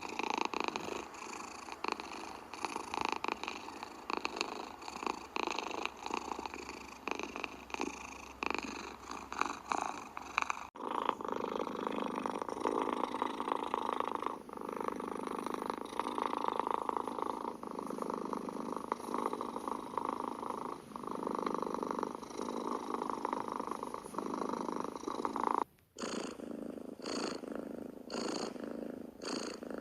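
Domestic cat purring close to the microphone, a steady rough purr. It comes in several spliced takes that change abruptly about 11 seconds in and again near the end, where the purr pulses more distinctly with each breath.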